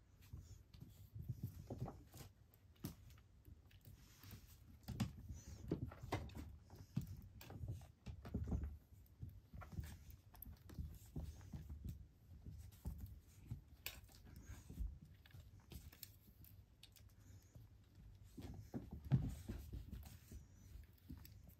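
Calico kitten and a white adult cat scampering and pouncing on a carpeted floor after a feather wand toy: soft, irregular paw thumps and patter, with a louder thump near the end.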